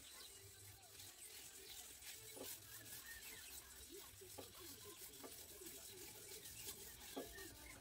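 Near silence: faint rubbing, with small squeaks and ticks, from a pad wiping shellac onto a black walnut bowl on a wood lathe, over a low steady hum.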